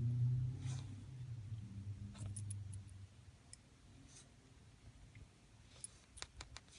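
Small, sharp clicks of a Hamilton Super Compressor wristwatch being handled: a few single clicks, then a quick run of four or five near the end.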